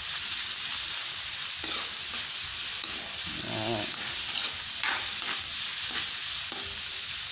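Pork, garlic and onion sizzling steadily as they sauté in oil in a wide metal wok, the dry browning stage before any water is added. A few knocks of a utensil against the pan are heard as the meat is stirred.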